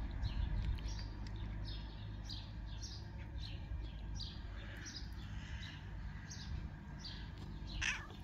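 Small birds chirping repeatedly, about two short chirps a second, over a steady low street rumble.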